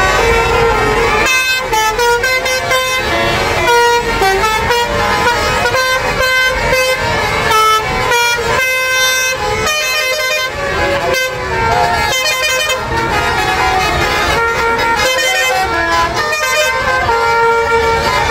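Tour bus basuri musical air horns playing tunes of short notes that step up and down in pitch, several horn tones sounding at once and without pause, over crowd voices.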